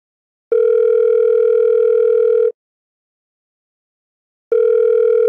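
Telephone ringback tone of an outgoing call ringing at the other end. There is one steady ring about two seconds long, a two-second silence, then a second ring begins.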